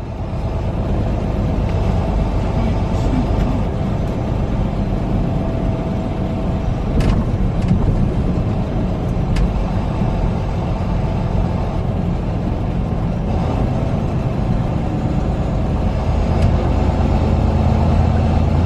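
Semi-truck's diesel engine and road noise heard from inside the cab while driving, a steady low rumble with a couple of faint clicks.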